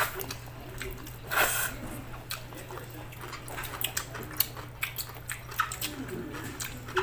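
People chewing and smacking their lips as they eat chicken, rice and egg with their hands, a scatter of short wet clicks. There is a louder hissing noise about a second and a half in, and a steady low hum underneath.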